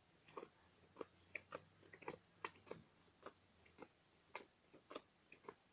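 Playing cards dealt one at a time from the hand onto a bedsheet, laying out the 21-card trick's three piles: a faint, irregular run of soft clicks and snaps, about two or three a second.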